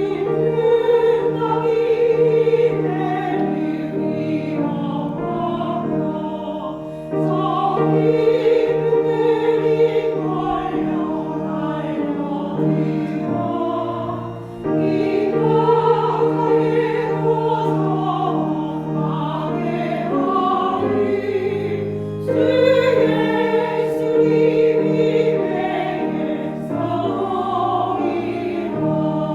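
Church choir singing a hymn in parts, accompanied by piano and pipe organ, in phrases with brief breaths between them.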